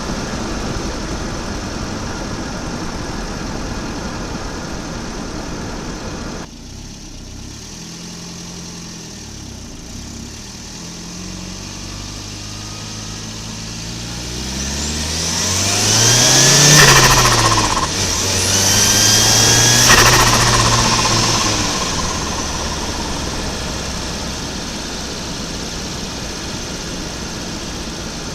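Volvo 940 Turbo's turbocharged B230FT four-cylinder running steadily, then building revs hard to a loud peak just past halfway. It drops back briefly, then peaks again, each time with a high whine climbing with the revs, before settling back to a steady run.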